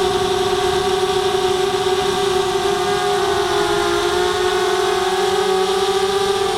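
Brushless motors and propellers of a ZMR250 FPV racing quadcopter whining steadily in flight. The pitch dips briefly about three seconds in, then climbs back.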